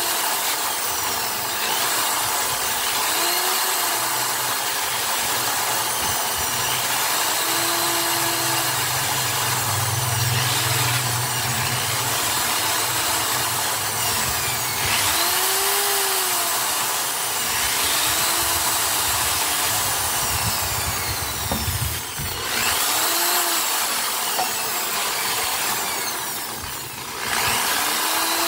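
Handheld electric drill running continuously, its motor pitch rising and falling again and again as its speed changes. The sound dips briefly twice near the end.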